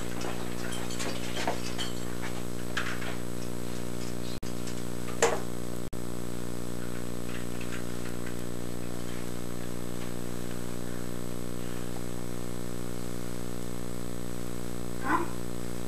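Steady low electrical hum with a buzzy stack of overtones, unchanged throughout, cutting out completely for an instant twice, about four and a half and six seconds in. A few faint short knocks and rustles sit over it, the clearest about five seconds in and near the end.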